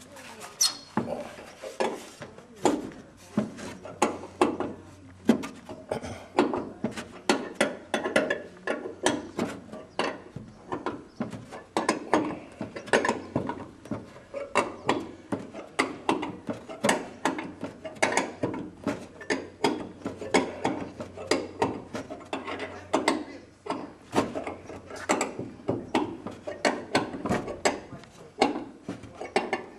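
Repeated sharp metallic knocks and clicks at irregular intervals, about one or two a second, as the goose-dented aluminium leading-edge skin of a Grumman light aircraft wing is worked on.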